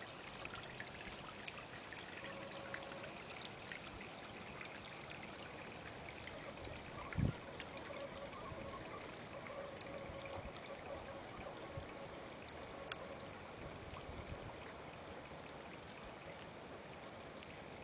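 Water trickling and splashing steadily down a stone-lined garden stream into a koi pond. A single dull thump about seven seconds in.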